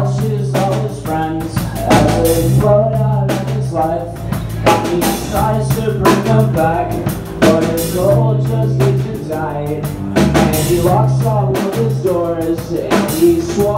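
Live band playing a song: drum kit beating out a steady rhythm, electric bass holding long low notes, and a singer's voice through a microphone.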